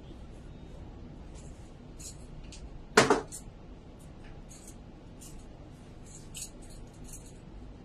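Soft, brief rustles of fabric and brushing close to the microphone, repeated at uneven intervals, with one loud bump about three seconds in.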